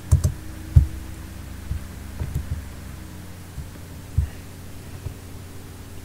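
A few short, muffled keystrokes and mouse clicks over a steady low electrical hum: a cluster right at the start, a sharper one just under a second in, a pair past two seconds and one past four seconds.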